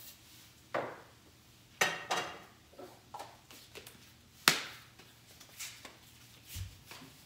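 Kitchen clatter: a string of separate knocks and clinks from cookware and utensils being handled. The loudest comes about four and a half seconds in, with a short dull thump near the end.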